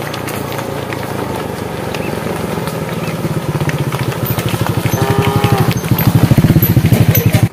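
A small engine running with a steady low pulsing, growing louder as it approaches and loudest near the end. A short high-pitched call sounds about five seconds in, and the sound cuts off abruptly at the end.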